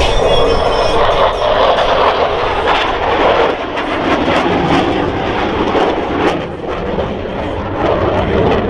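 Loud, steady jet-engine noise from Boeing F/A-18E/F Super Hornets with General Electric F414 turbofans flying past, easing slightly a little past the middle.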